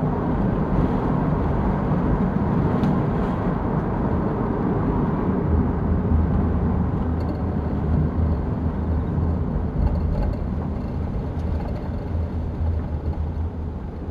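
Steady low rumbling noise with no clear events, heavier in the bass from about halfway through.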